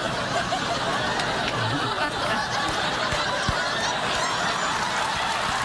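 Studio audience laughing, a steady wash of crowd laughter.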